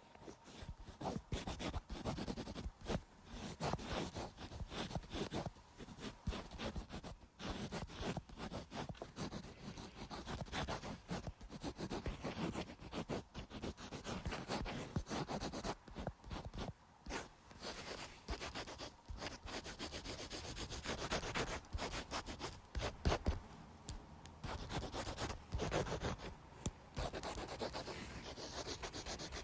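Pencil scratching on paper close to the microphone: quick, irregular sketching strokes drawing a line draft.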